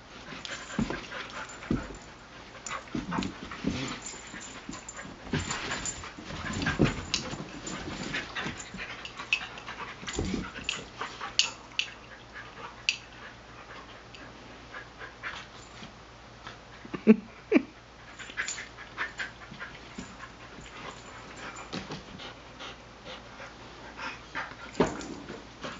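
Two dogs play-wrestling, with irregular scuffling, panting and short dog vocal sounds. Two brief louder calls come about 17 seconds in.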